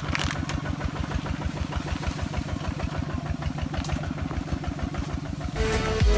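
Small engine running steadily with an even, fast chugging beat; music comes in at the very end.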